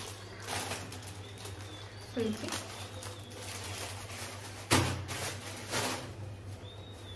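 Plastic noodle packet rustling and being handled, with a single loud thump about two thirds of the way through. Faint bird chirps sound in the background.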